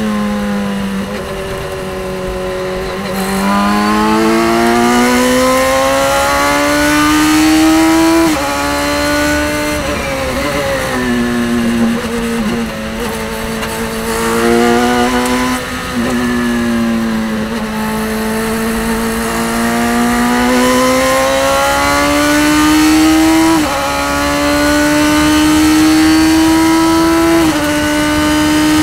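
Radical race car's high-revving, motorcycle-derived engine heard from the cockpit on a hot lap. Its pitch climbs under full throttle and drops sharply at quick sequential upshifts, about 8 s in and twice more near the end. It falls back with a couple of downshift steps under braking around the tenth to twelfth second, and holds low through the slower corners.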